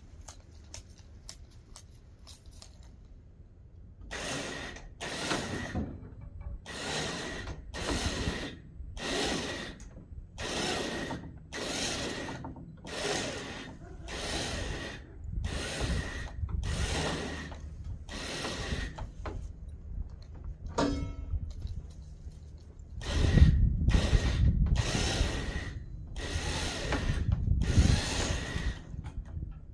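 A hand-worked mechanism cranked in a steady rhythm, about one and a half short noisy strokes a second, starting about four seconds in. There is a brief pause near the middle, and the strokes come heavier near the end.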